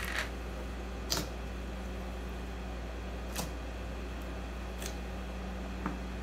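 Fingers pressing and poking into sticky honey slime in an open plastic tub. A few sharp little clicks and taps sound over a steady low hum.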